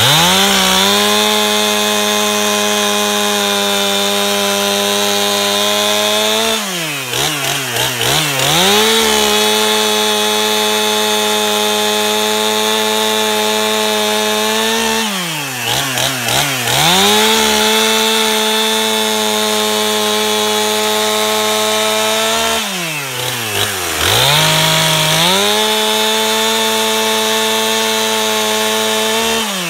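Stihl MS291 two-stroke chainsaw held at full throttle, cutting through a small oak log. Its pitch stays steady while it cuts; about every eight seconds the revs drop briefly and climb back up as the throttle is eased and reapplied.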